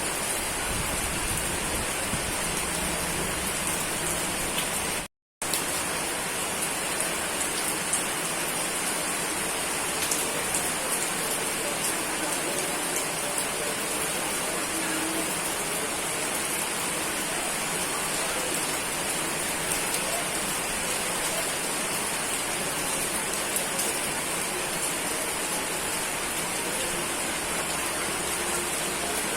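Steady rain falling, an even hiss with scattered drop ticks. The sound cuts out completely for a fraction of a second about five seconds in.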